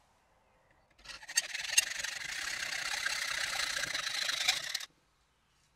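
Hand hacksaw cutting through 4 mm steel flat bar held in a vise. The sawing starts about a second in, runs steadily for about four seconds with a couple of sharp clicks near its start, then stops.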